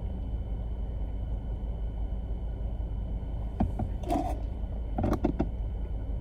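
Steady low rumble of a car's engine idling, heard from inside the cabin. A few brief clicks and rustles come past the middle and again near the end.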